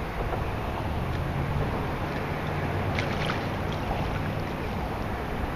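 Steady low hum of a boat's engine out on the water, with wind on the microphone. A few short clicks sound about three seconds in.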